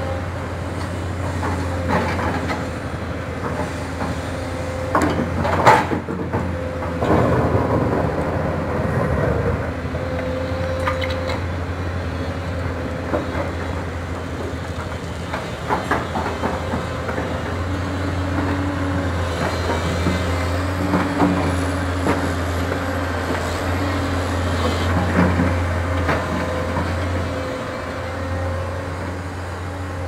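XCMG crawler excavator's diesel engine running steadily under hydraulic load while it loads a dump truck, with repeated knocks and clatter of earth and broken asphalt landing in the steel truck bed. The sharpest knock comes about six seconds in.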